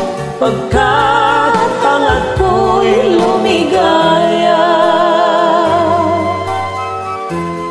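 A man and a woman singing a slow Filipino ballad duet over a karaoke backing track, the held notes sung with vibrato.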